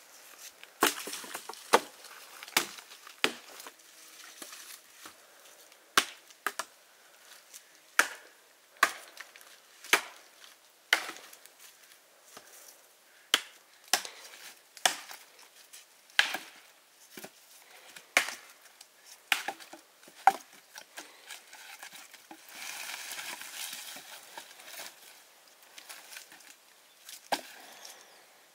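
Chopping wood with a blade: sharp single strikes at roughly one a second, unevenly spaced. Late on there is a pause of a few seconds filled by a softer, steady noise before the chopping starts again.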